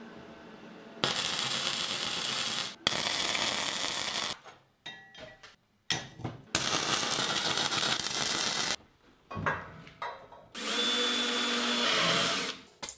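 Several short bursts of harsh, hissing power-tool work on steel, cut one after another. Near the end comes a cordless drill running steadily with a whine as it drills through a steel frame bracket.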